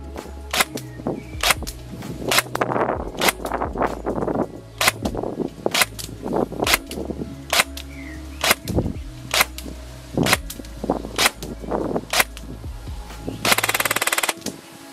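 ARES AR308M airsoft electric gun (AEG, V2 gearbox) firing single semi-automatic shots through a chronograph, about two sharp snaps a second. Near the end it fires a short full-auto burst lasting under a second.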